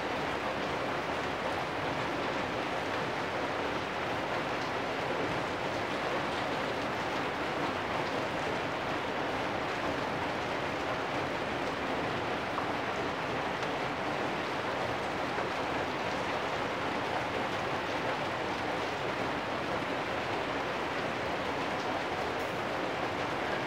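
Steady rain falling on corrugated metal roofs, an even hiss.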